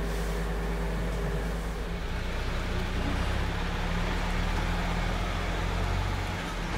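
Work truck's engine running steadily: a low drone with a haze of broader noise over it.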